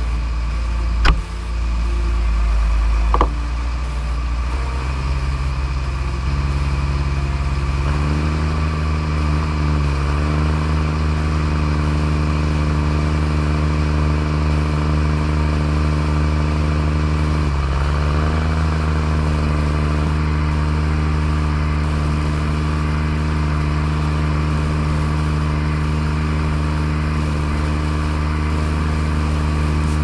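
Deutz six-cylinder 7.1-litre diesel engine of a tractor running steadily as it drives with a snowplow; its pitch steps up over the first several seconds, then dips briefly twice and recovers. Two sharp knocks sound about a second in and about three seconds in.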